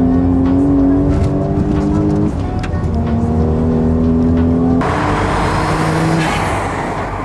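Toyota Soarer's 1JZ turbocharged straight-six engine pulling under acceleration. Its note climbs, drops at a gear change a little over two seconds in, and climbs again. A loud rushing hiss joins about five seconds in.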